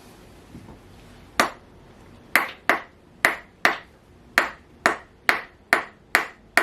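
Chiropractic activator adjusting instrument firing a run of sharp spring-loaded clicks, about ten of them. The first comes about a second and a half in, and the rest follow at roughly two a second.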